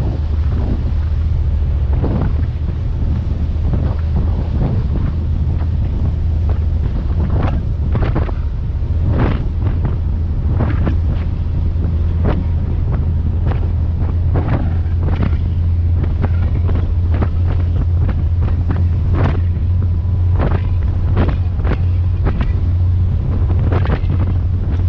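Strong wind buffeting the microphone on a moving ferry, in frequent short gusts, over the boat's steady low engine drone.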